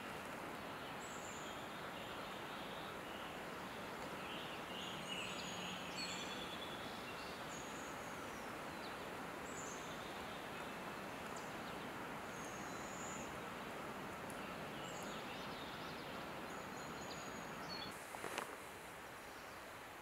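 Steady outdoor background hiss with brief, high songbird chirps scattered throughout, and a short sharp rustle or knock near the end.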